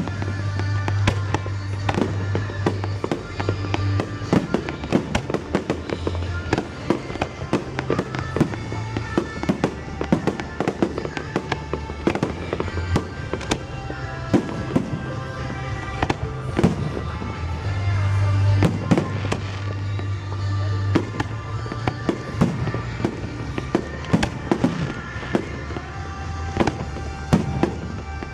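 Fireworks going off in quick, irregular bangs and crackles over music played for the display, with a heavy steady bass.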